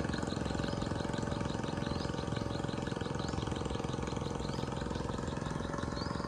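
A small engine running steadily at idle, with a faint high chirp repeating about three times a second.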